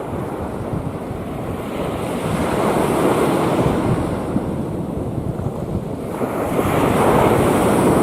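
Rough sea waves surging and washing in, the rush of water swelling twice, about three seconds in and again near the end. Wind buffets the microphone with a low rumble underneath.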